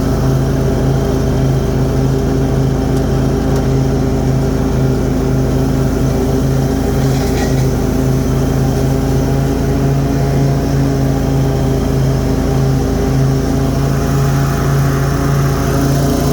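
Cub Cadet Z-Force zero-turn mower's Kohler Command Pro 23 hp V-twin engine running steadily at high throttle, with the cutting deck engaged and mowing grass.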